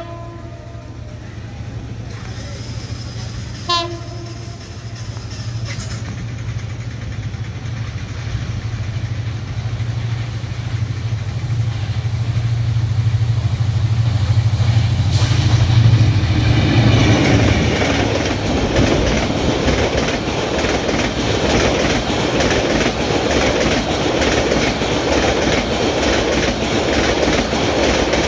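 Diesel locomotive of an approaching express train, giving a short horn toot about four seconds in, its engine drone growing louder as it nears. From about seventeen seconds the passenger coaches rush past close by with a loud rumble and a steady clatter of wheels over the rail joints.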